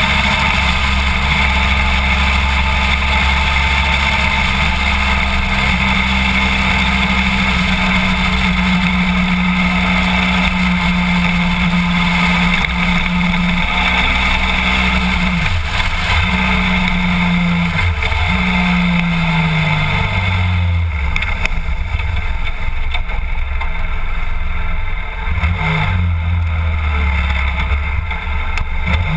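BMW F800GS parallel-twin engine running at a steady cruising speed, with wind rushing past the camera. About halfway through, the engine note changes pitch in several steps as the bike slows.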